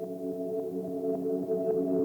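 Ambient background music: sustained synth-pad chords that grow steadily louder.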